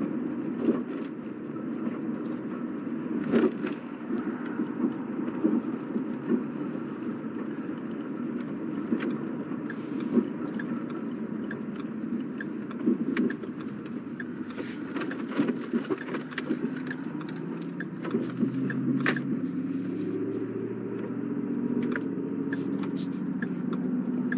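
Car running on the road, heard from inside the cabin: a steady low road and engine rumble with frequent small clicks and rattles. There is a short run of light, evenly spaced ticks about halfway through, and near the end the low hum steps down in pitch as the car slows.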